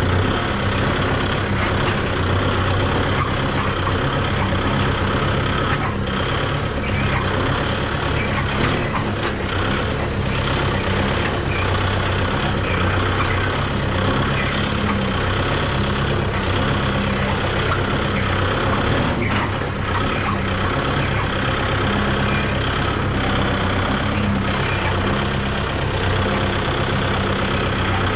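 Kubota MU5501 tractor's four-cylinder diesel engine running steadily while the tractor is driven over rough ground, heard from the driver's seat, with a few brief knocks along the way.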